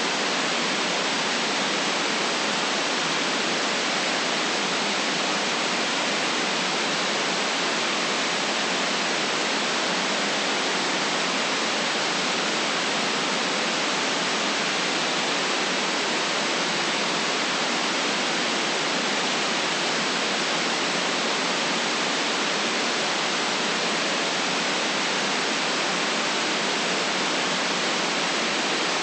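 Steady white noise: an even, unchanging hiss with no deep bass and no highest treble.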